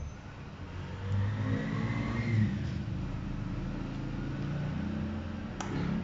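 A car engine running close by: its pitch rises to a peak about two seconds in, then holds steady.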